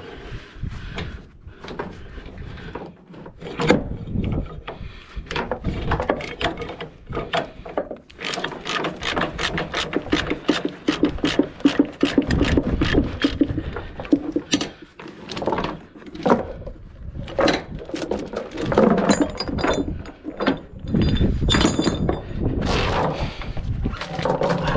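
Steel tie-down chains clinking and rattling as they are handled and dragged across a wooden trailer deck, with sharp knocks of hooks and links, busiest in a long run of rapid rattling in the middle.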